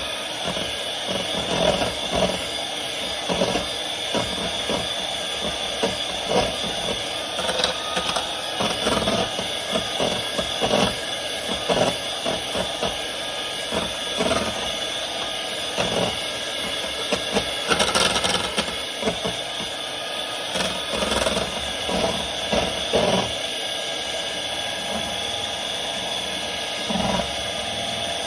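Electric mixer running steadily as it beats batter in a bowl, a constant motor whine with irregular knocks throughout.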